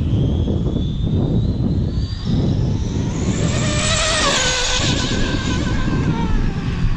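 Arrma Limitless RC car's TP Power 4070 brushless motor and drivetrain whining at high speed. The pitch climbs early on; the whine is loudest and fullest from about three to five seconds in, its pitch gliding slightly down. Heavy wind rumble on the microphone throughout.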